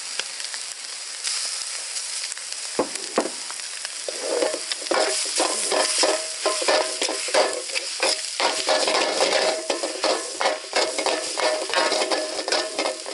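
Carrot, onion and tomato sizzling in butter in a large steel wok. From about four seconds in, a steel ladle stirs them in quick strokes, scraping and knocking against the pan with a metallic ring.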